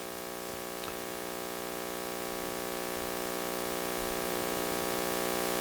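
Steady electrical mains hum and hiss from the sound system, a buzz made of many even hum tones under a layer of static, slowly growing louder.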